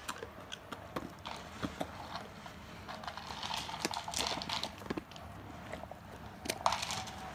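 Great Pyrenees chewing a small dry treat: irregular crunching clicks mixed with wet smacking of its drooling mouth, busiest about three to four and a half seconds in.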